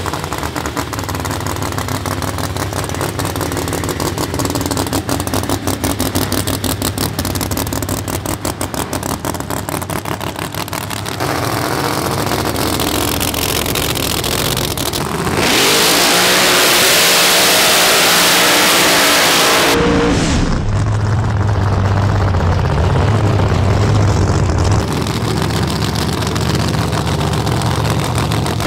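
Supercharged drag-race engines of no-prep cars: a lumpy, fast-pulsing idle first, then a few seconds of loud revving with a hissing roar, then steady running near the end.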